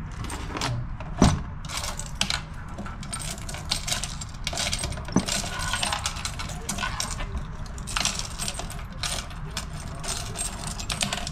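A ring of keys jangling and clicking against a metal lid as a key is worked in its lock, with one hard knock about a second in as the control-panel lid shuts. A steady low hum runs underneath.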